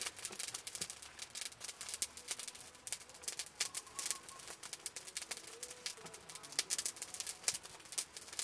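Hands pressing and rubbing a chopped herb and chili paste into whole raw fish on a banana leaf: many irregular small wet clicks and crackles.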